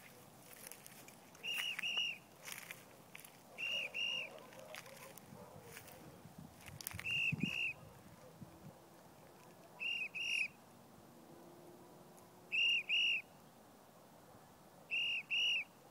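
A whistle blown in pairs of short arched notes, the pair repeated six times at intervals of two to three seconds.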